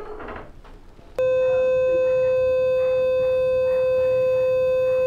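Ellman radiosurgery unit's steady electronic activation tone, starting abruptly about a second in and holding one pitch for about four seconds while the A8 tip is energized and cutting the first incision in the alar fold, then stopping suddenly.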